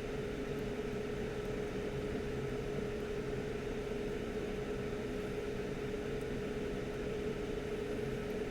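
Steady whir of a small electric fan, a constant mid-pitched hum over an even hiss, with no change in speed.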